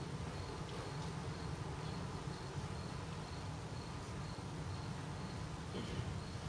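A cricket chirping in evenly spaced short, high chirps over a steady low rumble.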